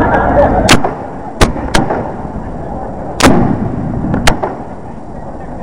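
Fireworks going off: about five sharp bangs at irregular intervals over a steady noisy background.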